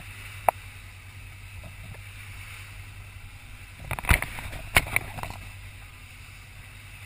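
Sportfishing boat's engine running with a steady low hum, under the hiss of wind and water. There is a single sharp click about half a second in. A cluster of loud knocks and rattles comes about four to five seconds in, as the mounted camera is knocked askew.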